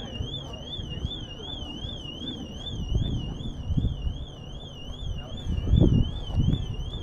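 Car alarm warbling steadily, its high tone rising and falling about three times a second. There are dull low thumps, loudest near the end.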